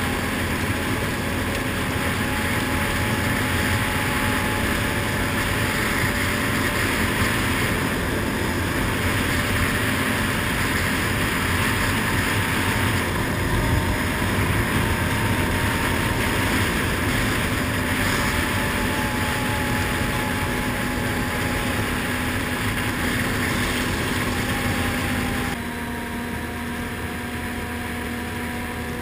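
ATV engine running steadily while riding, over a constant rush of tyre and wind noise. Near the end the engine drops a little in level and pitch.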